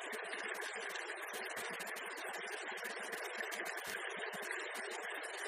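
Shallow stream babbling steadily over stones.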